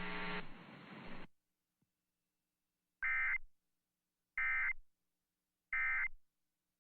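A low steady hum for about the first second, then silence, then three short identical bursts of Emergency Alert System end-of-message data tones, a warbling digital squawk, spaced about a second and a half apart. The three bursts signal the end of the alert.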